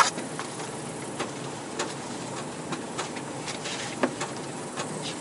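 Road noise inside a moving car: a steady hiss with scattered light clicks and knocks at irregular times.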